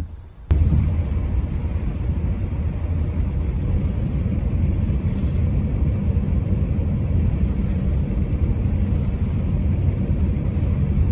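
Steady low rumble of engine and tyre noise inside a vehicle cruising along a highway. It starts abruptly about half a second in.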